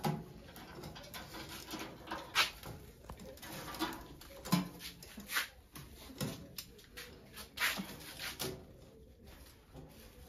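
Scattered sharp clicks and knocks of kitchen work, with plastic snack bags crinkling as they are handled, and a few short low sounds in between.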